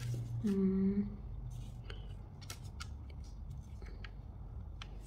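Scattered light clicks and ticks of small parts being handled: the hands and plastic movement of a DIY 3D wall clock kit being picked up and fitted together. A brief hummed voice sounds about half a second in.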